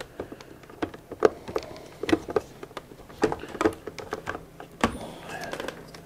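Irregular light clicks and knocks of hard plastic as a hose fitting is worked into the housing of a Hoover REACT Professional vacuum's power head, with one sharper knock about five seconds in.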